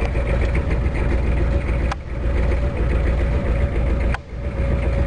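Old pickup truck's engine idling just after a cold start, warming up with a steady low rumble. The sound dips briefly twice, each time with a sharp click, about two seconds in and about four seconds in.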